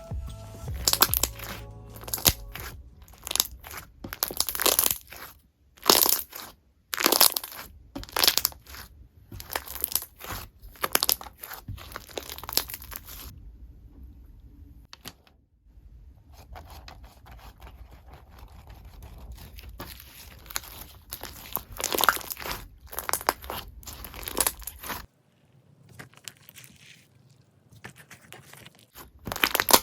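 Slime being pressed and worked by hand, giving quick irregular crackles and pops in several runs with short pauses between them.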